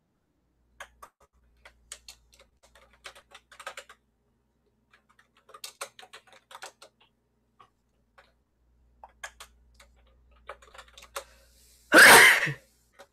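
Computer keyboard keystrokes: irregular clusters of light clicks as a word is typed into a search box. Near the end comes one short, loud burst of noise, louder than the typing.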